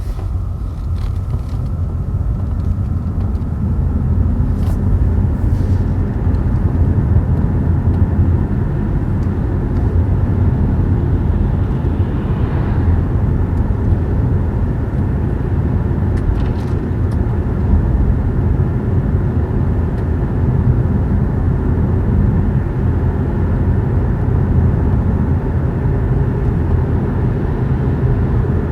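Inside a battery electric car driving on the street: a steady low road and tyre rumble with no engine note. It grows louder over the first few seconds as the car picks up speed, then holds steady, with a few faint ticks.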